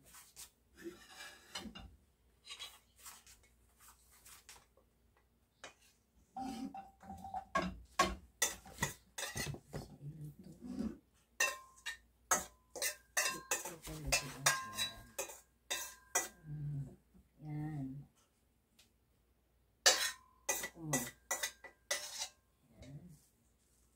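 Stainless steel mixing bowl clattering and knocking as seasoned garlic stalks are tipped out of it into a wok. The knocks are sparse at first and come thick and fast from about six seconds in, some ringing briefly like struck metal.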